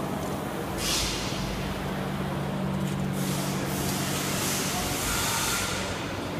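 Steady low machine hum in a truck repair shop, with a short burst of hissing air about a second in and a longer hiss from about three to five and a half seconds in.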